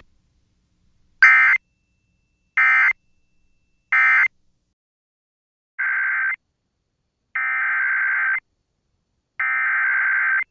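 Emergency Alert System SAME data bursts, the harsh digital screech that marks the end of one NOAA Weather Radio warning and the start of the next. Three short bursts about a second and a half apart make the end-of-message code, then, after a pause, three longer bursts of about a second each carry the header code for the next warning.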